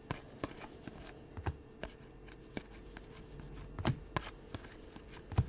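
Trading cards being handled and flipped through by hand: a string of soft, irregular clicks and slides, with one sharper click about four seconds in.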